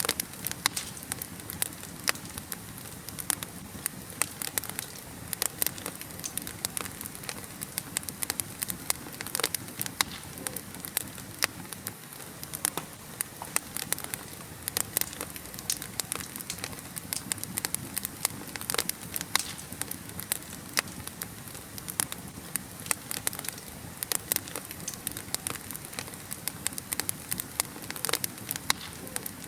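Wood fire burning in a fireplace, crackling with many sharp, irregular pops over a steady hiss.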